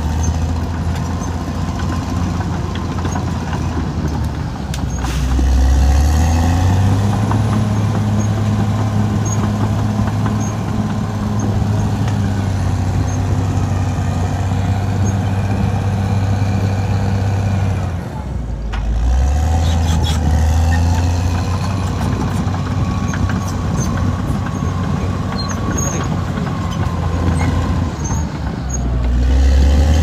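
Caterpillar D6R XL bulldozer's diesel engine running hard as the dozer works earth. The engine revs up about five seconds in, drops back briefly twice (once midway through and once near the end), and picks up again each time.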